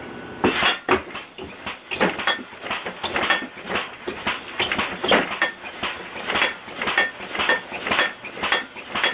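Air-compressor-powered, computer-controlled bed alarm going off: the bed is shaken and banged, clattering knocks about three a second, starting half a second in.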